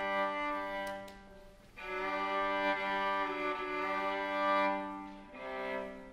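String quartet of two violins, viola and cello playing sustained bowed chords; the sound drops away briefly about a second and a half in, resumes, then fades near the end.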